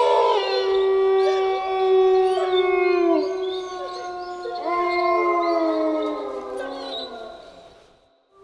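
Several wolves howling in chorus: long overlapping calls at different pitches, some sliding down in pitch, fading out near the end.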